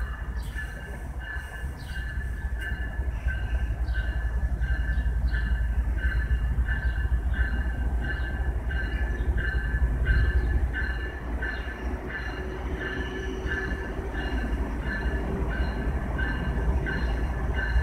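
Norfolk Southern diesel locomotive approaching with its bell ringing steadily, a little under twice a second, over the low rumble of its diesel engine.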